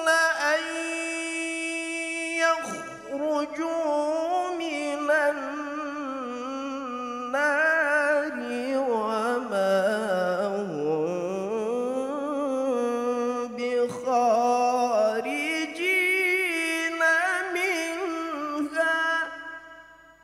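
A man's solo Quran recitation in the melodic tilawah style. It runs in long, ornamented sung phrases with a wavering pitch, and breaks for a short breath about three seconds in and again about fourteen seconds in. The last phrase fades away near the end.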